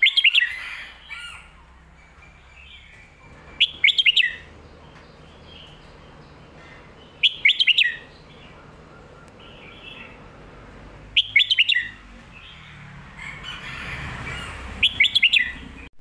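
Caged red-whiskered bulbul singing: five short, loud whistled song phrases, one about every four seconds, with quieter chirps between them.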